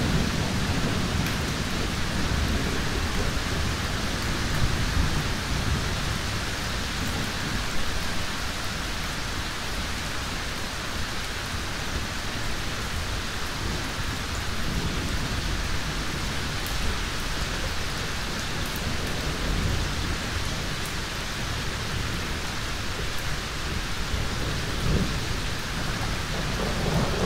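Thunderstorm: steady heavy rain with thunder rumbling low beneath it, and a stronger roll of thunder near the end.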